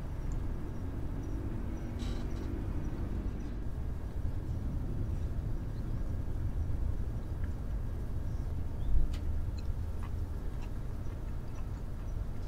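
Steady low rumble of background noise, with a few faint light clicks of chopsticks against the bento box.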